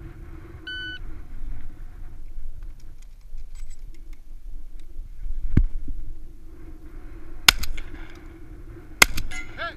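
A shot-timer start beep a little under a second in, a knock around the middle, then two shots from a Remington 1100 semi-automatic shotgun about a second and a half apart near the end, the second followed by a short ringing.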